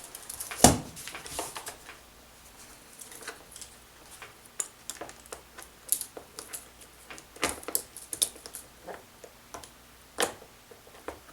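Irregular light clicks, clinks and knocks of chainsaw parts being handled and fitted: the bar and chain going back onto an electric chainsaw, with a few sharper knocks, the loudest about half a second in and near the end.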